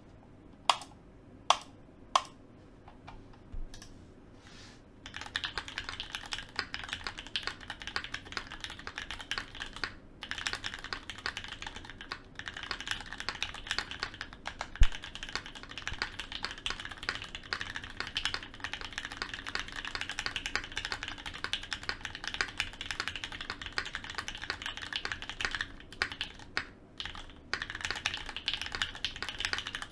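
Linworks Dolphin mechanical keyboard with lubed Gateron Milky Black linear switches on a full aluminium plate and GMK keycaps, being typed on. It opens with three single, loud key presses, then settles into fast continuous typing from about five seconds in, with brief pauses near the middle and near the end.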